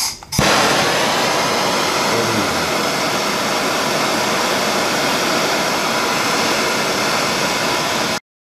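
Hand-held propane torch lighting with a click about half a second in, then its flame hissing steadily while it heats a copper welding cable; the hiss cuts off abruptly just before the end.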